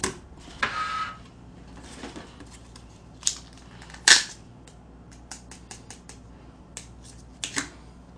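Plastic and cardboard takeout packaging being handled on a desk: sharp snaps and crinkles as a small plastic sauce cup is opened and the chicken box is handled. The loudest snap comes about four seconds in, followed by a run of lighter clicks.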